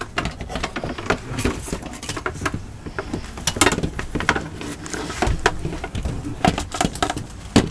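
Irregular clicks, taps and knocks from a roller shade blind and its mounting clips as it is handled and pushed up into place under the window valance.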